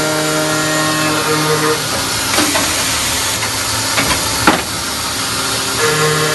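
Ajax CNC carbide cold saw running through its automatic cycle. A steady pitched machine hum gives way about two seconds in to a hissing stretch broken by a few sharp metallic clacks, the loudest about four and a half seconds in. The hum returns near the end.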